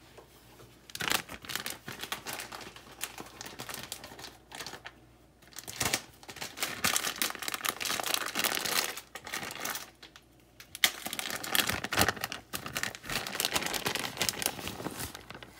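Plastic bag of shredded cheese crinkling and rustling as it is handled and opened. It comes in irregular bursts with short pauses between them.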